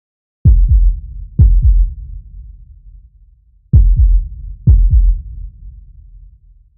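Heartbeat sound effect: four deep double thumps, lub-dub, each dying away slowly, the first two pairs about a second apart and the next two after a longer pause.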